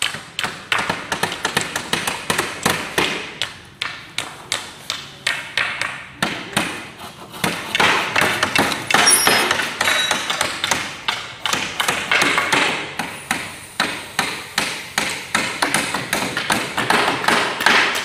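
Hammer blows nailing wooden planks, a fast uneven series of knocks at about three a second, as a crate is built around an engine.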